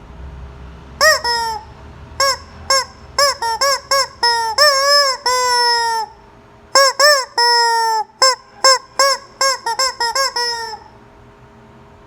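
Rubber chicken squeeze toy squawking over and over as it is squeezed: a quick run of short honks with a few longer drawn-out squawks in the middle, starting about a second in and stopping near the end.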